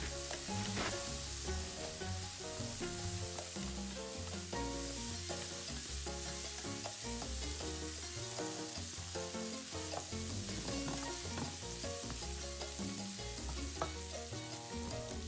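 Chopped garlic and bacon fat sizzling in a hot pan as they are stirred, a steady frying hiss, with background music playing underneath.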